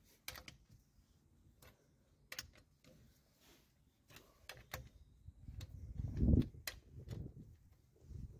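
Socket and breaker bar clicking onto the wheel's lug nuts, a few sharp metal clicks and taps, as each nut is double-checked for tightness. A louder low thump comes about six seconds in.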